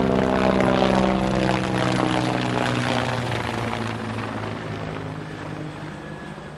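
Propeller aircraft flying overhead, a steady engine drone that fades away as it passes.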